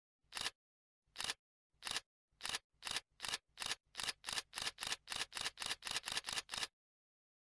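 A run of about eighteen short, crisp clicks added as a sound effect, starting about one a second and speeding up to about four a second, then stopping abruptly near the end.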